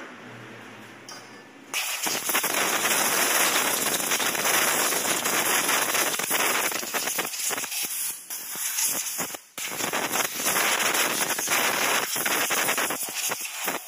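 Compressed-air blow gun hissing as it blows dust and dirt off a chainsaw's engine. It starts about two seconds in and runs in long blasts, with a few short breaks in the second half.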